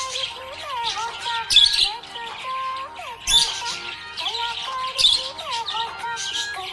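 Budgerigar chirps and squawks over a gliding sing-song melody of a children's rhyme tune. Loud high chirp bursts come about every second and a half to two seconds.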